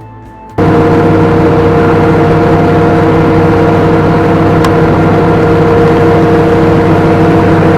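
An engine running loud and steady at a constant speed, cutting in abruptly about half a second in.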